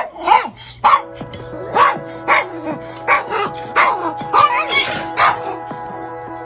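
A dog barking repeatedly, about ten barks in quick succession, over background music with steady held notes that come in about a second in.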